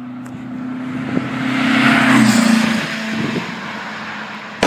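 A motor vehicle's engine running steadily and passing by. It is loudest about two seconds in, then its pitch drops slightly as it fades away.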